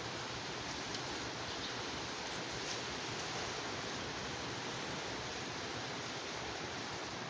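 Wind blowing steadily, an even rushing noise with no distinct gusts.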